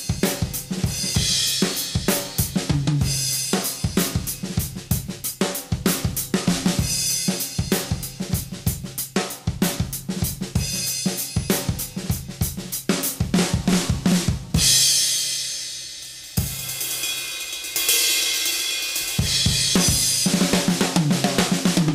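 Acoustic drum kit (Tama Starclassic Performer birch shells, Mapex birch snare, Zildjian and Sabian cymbals) played in a busy pattern of fast snare, kick and hi-hat strokes. About two-thirds of the way through the playing stops on a cymbal crash that rings and fades. Another hit sets a cymbal washing again, and near the end the busy playing resumes. It is picked up by a single large-diaphragm condenser microphone about a foot in front of the kit.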